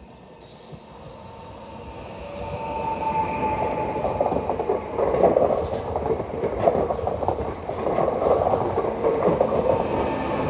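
Pesa electric multiple unit passing close by: the sound builds as it approaches, with a high steady whine a few seconds in, then the wheels clatter rhythmically over the rail joints as the cars go past.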